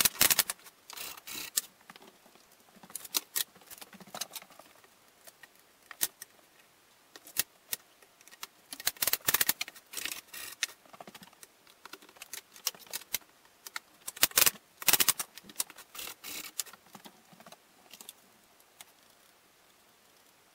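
Pneumatic staple gun firing into a wooden canvas stretcher frame while the wooden bars are handled: clusters of sharp clicks and knocks every second or two, with quiet gaps between.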